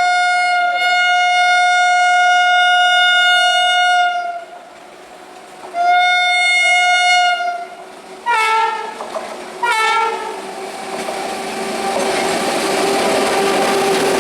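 Train horn sounding two long steady blasts, then two short blasts about a second and a half apart. Then the noise of the train running on the rails rises and holds steady as it comes past.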